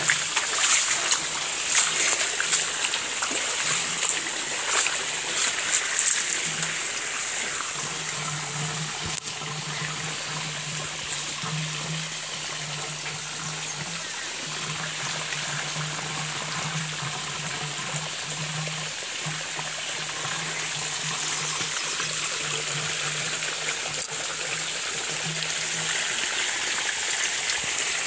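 Irrigation water trickling and running across a flooded field, with splashing steps through the shallow water in the first few seconds. A low steady hum runs under the water through the middle.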